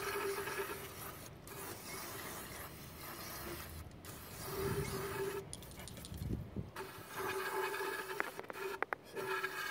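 Wet/dry vacuum set to blow, forcing air through the intake manifold and out of the EGR valve port during cleaning: a steady rush of air with a whistling tone that comes and goes, and a few knocks in the middle.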